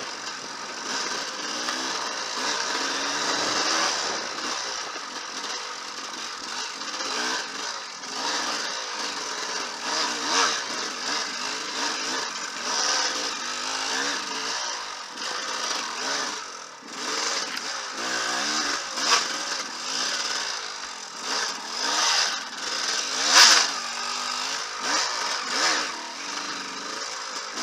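An enduro dirt bike's engine revs up and down as it is ridden hard over rough trail, heard from the rider's helmet camera. Knocks and thumps come now and then, the loudest a sharp knock about 23 seconds in.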